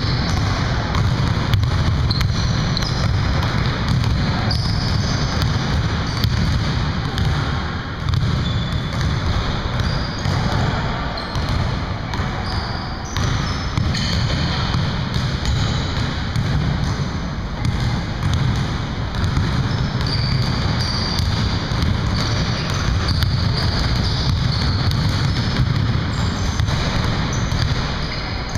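Basketballs bouncing and being dribbled on a hardwood gym floor, with short high sneaker squeaks, over a steady low rumble.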